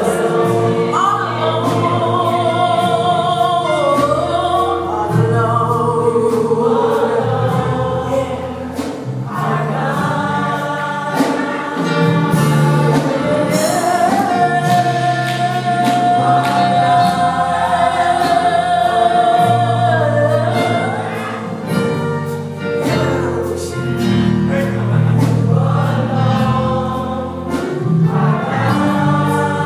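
Gospel choir singing with instrumental accompaniment, one long note held for several seconds in the middle of the passage.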